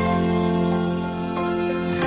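Music holding a sustained chord, with no singing.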